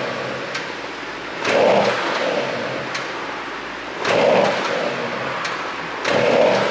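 Porsche Panamera Turbo S E-Hybrid's twin-turbo V8 blipped three times, about every two and a half seconds, with a sharp exhaust pop on the overrun between revs.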